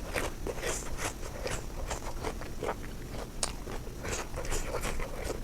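Close-miked chewing of food, with irregular short crunches and wet mouth sounds.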